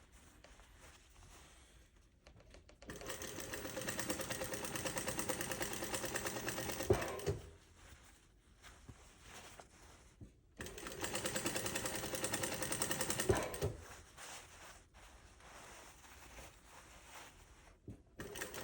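Sewing machine stitching in two runs at a fast, even rate. The first run starts about three seconds in and lasts about four and a half seconds, and the second lasts about three seconds. Each run ends with a brief louder knock as the machine stops, with quieter handling pauses between.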